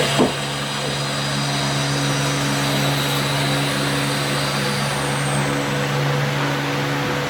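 Steady mechanical drone of a running motor, with one short knock just after the start.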